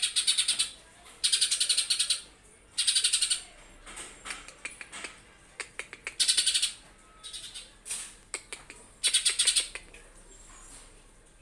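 Cucak ijo (green leafbird) singing in harsh, rapid-fire bursts of fast repeated notes, several short bursts separated by brief pauses.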